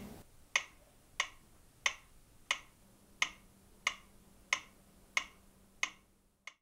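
Mechanical pyramid metronome ticking steadily, about ninety ticks a minute, each tick a short, sharp click.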